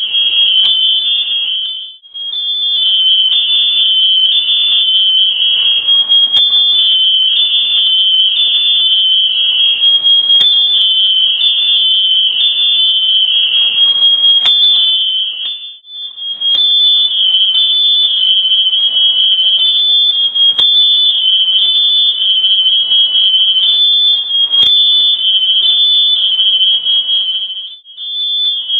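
Smoke alarm sounding continuously: a loud, piercing tone that pulses between two close pitches and cuts out briefly a few times. It is going off because smoke from a house fire has filled the room.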